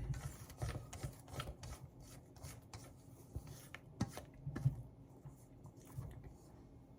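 Spatula scraping the sides of a mixing bowl of whipped coconut cream: irregular rubbing strokes with light knocks, the loudest about four seconds in.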